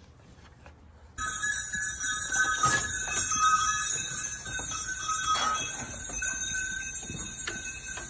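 Bells on a herd of goats jingling and clanging together as the goats run about. The ringing starts suddenly about a second in, many bells sounding at once.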